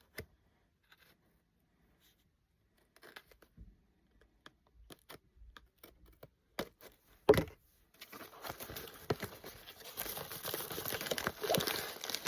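Packaging being handled and opened: a few scattered rustles and taps, one sharp loud rip about seven seconds in, then steady crinkling and tearing of the wrapping.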